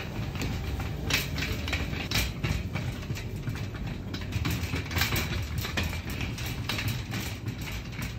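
Empty wire shopping cart pushed over a tiled floor: its wheels make a steady low rolling noise, with many irregular rattles and clicks from the metal basket and casters.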